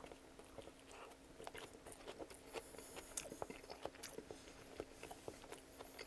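Close-miked chewing of a Coney dog (hot dog in a soft bun with meat sauce, mustard and chopped onion): a bite, then chewing with the mouth closed, heard as faint, irregular small clicks and smacks.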